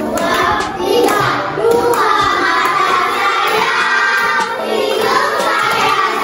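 A class of young children singing a song together, with some clapping along.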